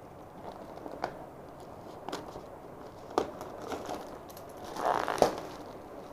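Product packaging being handled during unboxing: scattered crinkles and light knocks, with a longer rustle and a sharp click about five seconds in.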